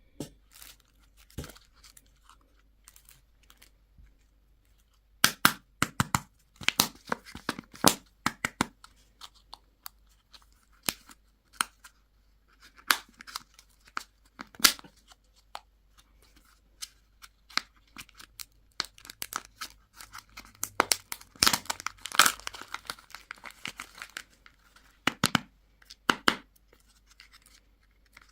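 Candy wrappers being torn open and crinkled, in irregular sharp crackles. They are sparse for the first few seconds and then come thick and fast.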